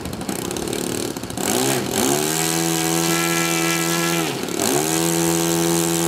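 A Saito FA-62 four-stroke glow engine on an RC model plane, running and then revved up about two seconds in to a steady high pitch. Just past the middle it is throttled back briefly, then revved up again and held.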